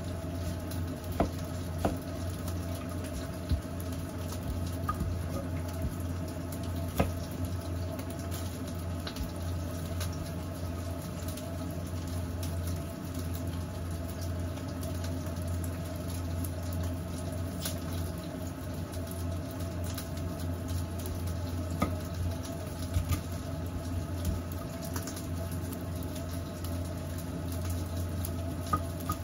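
An onion being peeled and cut with a kitchen knife on a wooden cutting board: dry skin rustling and scattered sharp knocks of the blade on the board, over a steady low hum.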